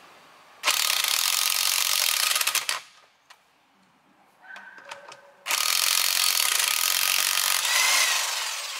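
Corded electric impact wrench hammering a trailer wheel's lug nuts loose, in two loud bursts of about two and three seconds with a short pause between.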